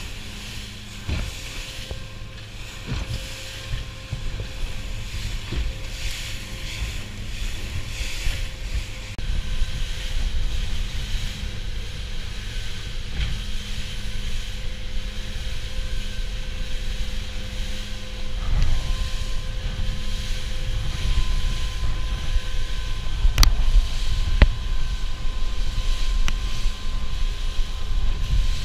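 Aluminium fishing boat running at speed through choppy sea: a steady engine hum under rushing water and wind buffeting the microphone, getting louder partway through. A couple of sharp knocks near the end.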